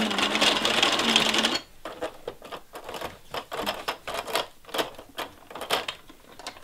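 A loud electronic sound effect from the Roll & Roar Animal Train toy's speaker cuts off abruptly about a second and a half in. After it comes irregular plastic clicking, about three or four clicks a second, as hands turn and press the toy's gears and buttons through its box.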